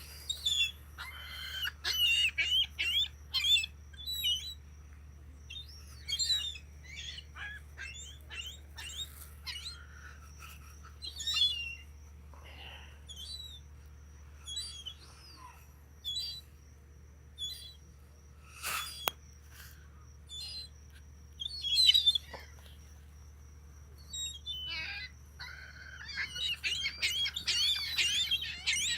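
Seagulls calling over food: many short, high squawks and chirps in irregular bursts, busiest at the start and again near the end, with one sharp click a little after the middle.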